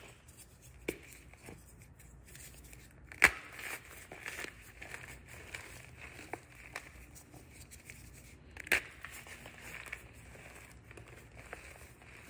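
Hands crushing and rubbing a reformed block of gym chalk into powder: soft, continual crunching and crackling of the chalk. Two sharper cracks stand out, one about three seconds in and another some five seconds later.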